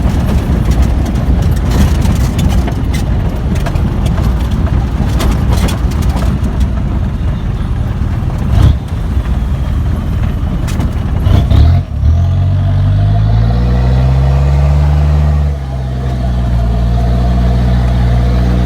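Kia Sportage 4x4 driving over a rough off-road track: a loud rumble with many knocks and clatters from the body and wheels. About twelve seconds in the knocking stops and the engine's steady drone stands out, dipping briefly a few seconds later.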